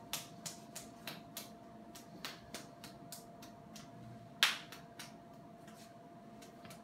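Sharp clicks of ultrasound console keys and buttons being pressed, a few a second at first, then sparser, with one louder click about four and a half seconds in, over a faint steady tone.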